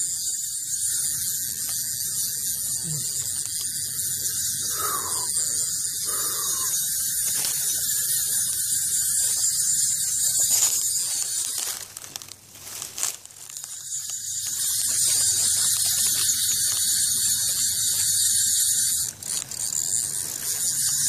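Fishing reel ratcheting with a continuous high buzz. It drops out for a second or so about twelve seconds in, then resumes.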